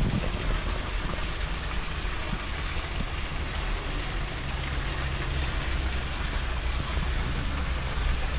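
Small waterfall spilling steadily into a koi pond, a continuous splash of falling water, with a steady low hum underneath.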